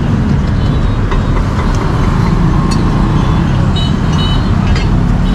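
Street traffic: a steady low rumble of passing vehicles, with a few faint light ticks and short high tones scattered over it.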